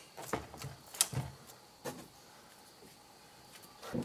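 A few short sharp clicks and taps, about four in the first two seconds, from hands and a tool working at a motorcycle battery's terminals, then quiet.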